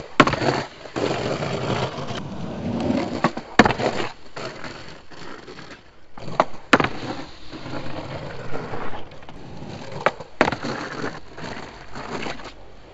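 Skateboard rolling on concrete, broken by sharp clacks of the board popping and landing, with the deck sliding along a concrete ledge in noseslides. There are several such tries, with the loudest impacts near four seconds in, around six and a half seconds and around ten seconds.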